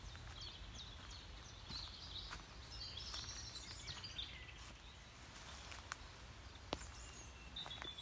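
Woodland songbirds singing in high chirps and trills, over a steady low rumble, with footsteps on the forest path and a few sharp snaps in the second half.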